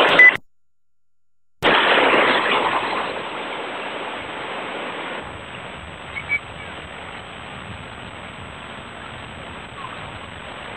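Baltic Sea surf: small waves breaking and washing up a sandy beach, a steady noisy wash through a camcorder microphone. The sound cuts out briefly about half a second in, comes back at its loudest, then settles to a quieter, even wash.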